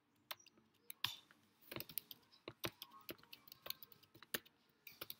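Typing on a computer keyboard: a run of irregular, quick keystrokes.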